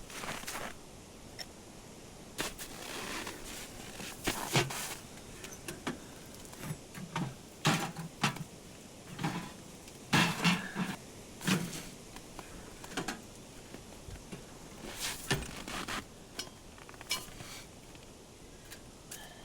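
Irregular clinks and knocks of camp gear being handled, many separate short strikes, some with a dull low thud.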